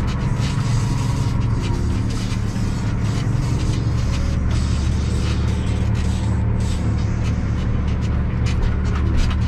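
Tractor engine running steadily, heard from inside the cab, with a constant low hum. Many short ticks are scattered over it as chopped maize blown from the forage harvester's spout strikes the cab.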